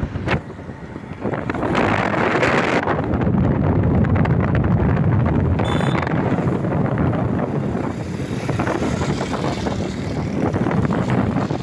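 Wind buffeting the microphone over a steady low rumble, with a short pitched sound about six seconds in.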